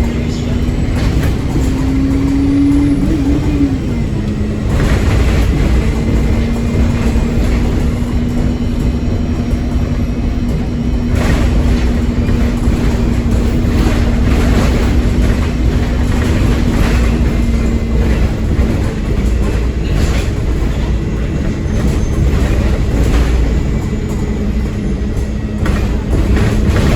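Stagecoach South bus 26158's diesel engine running hard under load, with a heavy low rumble and a steady whine that climbs briefly about two to three seconds in, then drops back. Occasional knocks and rattles from the bodywork.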